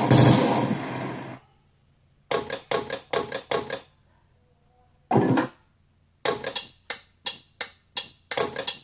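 Machine-gun sound effects from an RC tank's Panther sound pack, played through the sound unit's speaker. A long rapid burst cuts off about a second and a half in, then come short groups of shots with pauses between, the last run of quick shots near the end.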